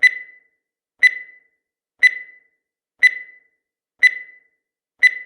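Countdown timer's tick sound effect: a short sharp click with a brief high ring, repeating evenly once every second.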